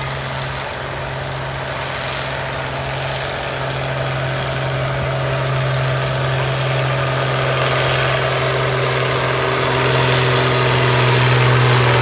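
International Harvester turbo diesel tractor engine running flat out, pulling a weight-transfer sled at a tractor pull. It holds a steady pitch and grows steadily louder as the tractor comes closer.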